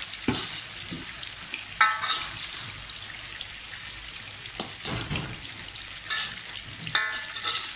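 Long beans sizzling as they fry in a wok with chilli paste, a steady hiss. A metal spatula scrapes and clinks against the wok several times as they are stirred, the loudest clinks about two seconds in and near the end.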